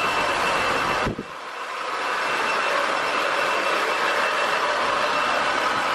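Handheld hair dryer blowing steadily, a constant rushing noise with a faint high whine. It drops off sharply about a second in and builds back up over the next second.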